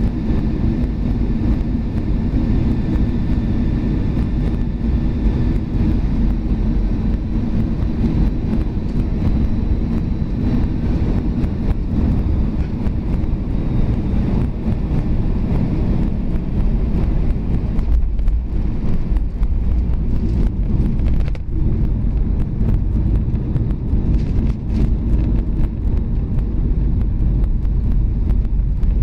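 Airbus A320 landing heard from the passenger cabin: a steady rush of engine and airflow noise, with a faint whine that fades a few seconds in. After about ten seconds come the touchdown and the rumble, knocks and rattles of the wheels rolling down the runway.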